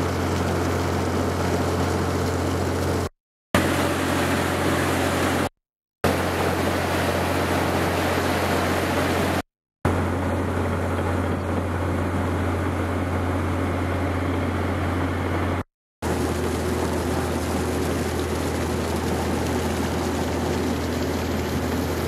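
A boat's engine drones steadily low with a rush of water and air noise over it, as heard on board a moving boat. The sound drops out to silence briefly four times and picks up again at the same level.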